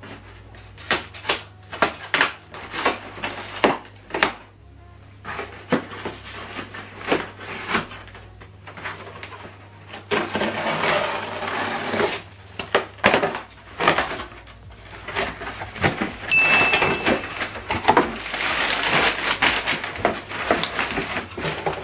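Scissors cutting and snipping through the packing tape on a cardboard shipping box, a run of sharp clicks. From about ten seconds in, the box flaps are pulled open and crumpled kraft packing paper rustles, with more scraping of cardboard.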